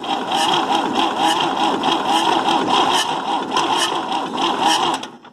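Starter cranking the MWM diesel engine of a Massey Ferguson 85X tractor, turning it over steadily for about five seconds without it catching, then stopping near the end. The injector lines are cracked open to bleed air from the fuel system after five years standing.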